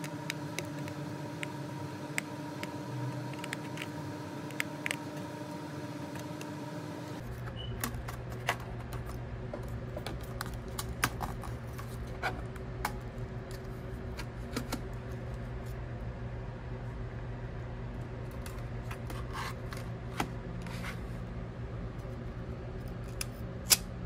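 Small clicks and taps of ThinkPad T420 laptop disassembly: a small screwdriver working a screw in the memory bay. After a cut about seven seconds in come scattered plastic clicks as the keyboard is handled and lifted off, with one sharp click near the end.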